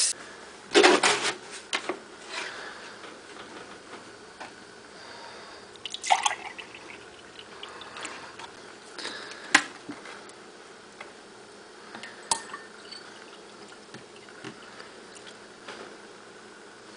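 Drinks being poured into a glass: drips and small splashes of liquid, with scattered clicks and knocks from bottles and caps being handled. The loudest cluster of knocks comes about a second in.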